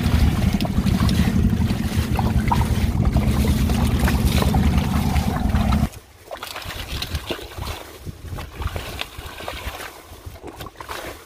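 A loud low rumble that cuts off suddenly about six seconds in, then quieter splashing and sloshing of hands and a plastic basket working through shallow muddy water.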